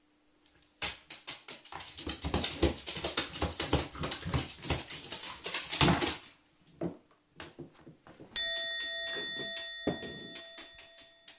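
A carrion crow splashing in a small plastic bucket of water and tipping it over: a rapid, dense run of splashes and knocks of plastic on a wooden floor for about five seconds. About eight seconds in, a bell-like chime rings out and slowly fades.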